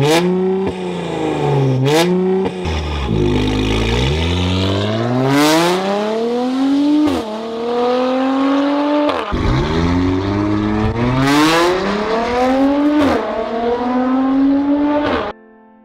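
Mercedes-AMG C43's 3.0-litre twin-turbo V6 through an Armytrix aftermarket exhaust. The revs are blipped up and down, then it pulls hard with the pitch climbing and dropping back at each upshift. Sharp cracks come off the exhaust on some revs and shifts, and the engine sound cuts off suddenly near the end.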